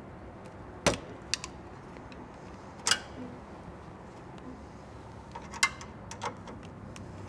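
A handful of sharp clicks and taps of a hand tool and fittings on the refrigerant line service valves of an electric truck APU, as the valves are opened and capped. The loudest come about a second in, about three seconds in and near the end.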